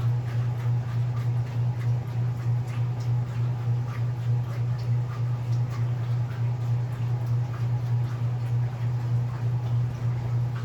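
Washing machine motor running: a steady low electric hum with an even pulse, and faint light ticks over it.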